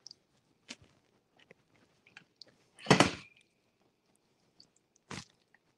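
Hands massaging oil and Dijon mustard into a raw sirloin tip roast: soft wet squishing of meat, with three short knocks, the loudest about three seconds in with a brief ring.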